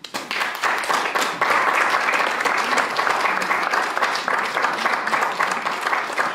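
Audience applauding: dense clapping that starts suddenly, fills out within the first second or two and carries on steadily.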